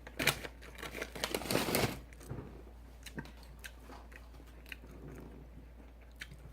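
Crunchy bites into a battered onion ring and chewing, loudest in the first two seconds, then quieter, sparser chewing clicks.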